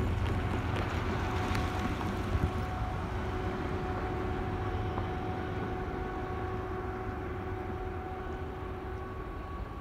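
Low, steady rumble of a Union Pacific intermodal freight train, slowly fading as the train moves away, with a few faint steady tones above it. A car drives past near the start.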